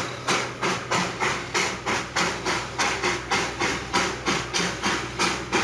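Darjeeling Himalayan Railway B-class 0-4-0 saddle-tank steam locomotive chuffing steadily as it hauls its train, with about three sharp exhaust beats a second.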